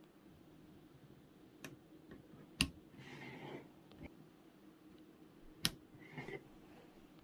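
Sharp plastic clicks of PC power-supply cable connectors being handled and plugged in: two loud clicks about three seconds apart, each followed by a brief rustle, with a few fainter taps.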